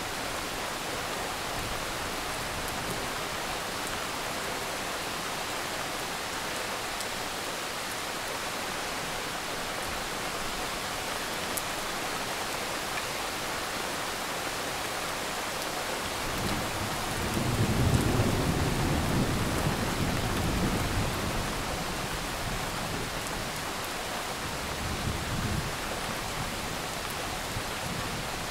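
Steady rain falling, with a low roll of thunder rumbling for several seconds a little past halfway and a shorter, weaker rumble near the end.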